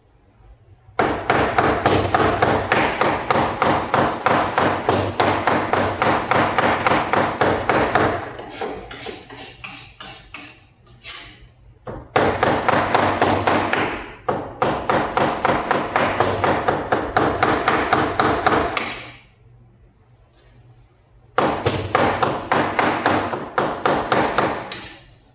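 Chicken being minced into keema with a knife on a chopping block: rapid, even chopping strokes, several a second, in three long runs with short pauses between them.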